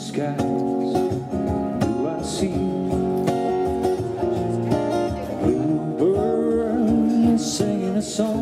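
Acoustic guitar played live with a man singing along into a microphone, a slow, even song.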